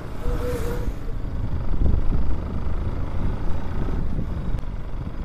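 Motorcycle running at road speed, heard from a helmet-mounted camera, with heavy wind rumble on the microphone. An oncoming truck passes close by within the first second.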